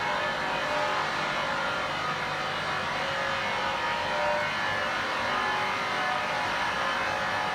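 Vacuum emulsifier mixer's motors running: a steady mechanical drone with faint whining tones, holding an even level.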